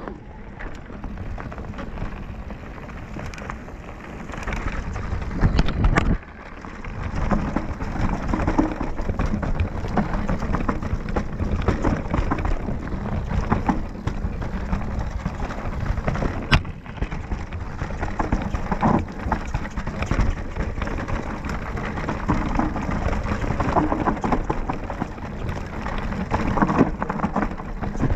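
Mountain bike riding fast down a dirt forest trail, heard from a camera on the handlebars: a rough, constant rumble of tyres and frame over leaves, dirt and stones, broken by sharp knocks and rattles as the bike hits bumps. It is loudest around six seconds in, then drops suddenly.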